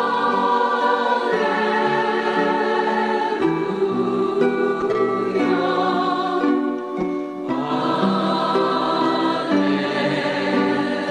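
Music of sustained choir-like voices singing held chords that change every two seconds or so.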